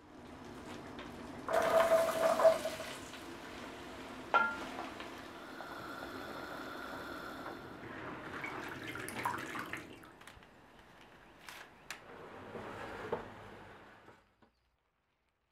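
Water running and sloshing in a kitchen sink as spinach is washed by hand in a bowl of water. A sharp clink with a short ring comes about four seconds in, and the sound cuts off suddenly near the end.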